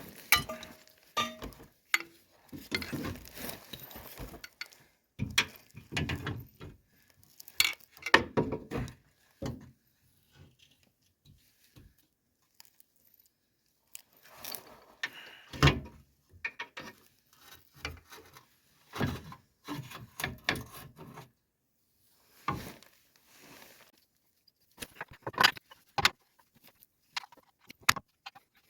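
Metal hand tools clinking, clanking and rattling in irregular bursts with pauses, as sockets and wrenches are worked on bolts under a car.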